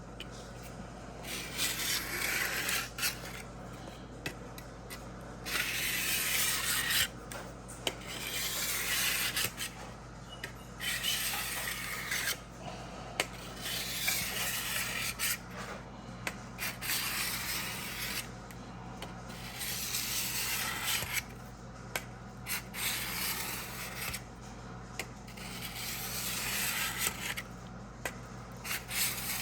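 600-grit diamond sharpening block rubbing across the steel blade of an old ChipAway drawknife, stroke after stroke, each a second or two long with short pauses between. Light pressure, the block gliding over the edge.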